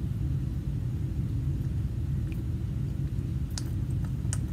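Steady low rumble of room background noise, with two faint light clicks near the end.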